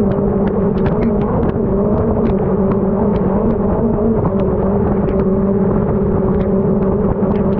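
Mercury 60R outboard motor running steadily with the boat under way, its pitch holding nearly even.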